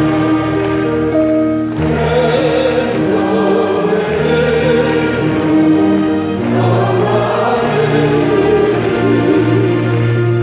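A hymn sung by many voices together, with held chords from an instrumental accompaniment underneath.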